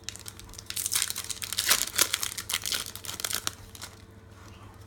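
Foil wrapper of a Pokémon Evolutions booster pack crinkling and tearing as it is ripped open by hand: a rapid crackle from just under a second in, lasting about three seconds.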